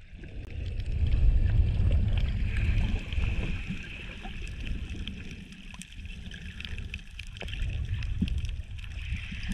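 Shallow reef surge heard underwater: a low churning rush of moving water that swells about a second in, eases midway and swells again near the end, with a steady hiss and faint scattered clicks over it.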